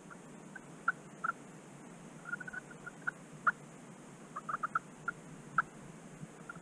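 Turkey calling in short, sharp notes spaced irregularly, with a quick run of several notes about two seconds in and another about four and a half seconds in.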